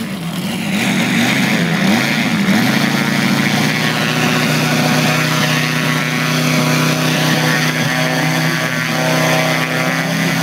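Moki 250 radial engine of a large-scale RC Fw 190 running on the ground, turning its propeller. The pitch rises and falls with the throttle for the first two or three seconds, then settles into a steady run.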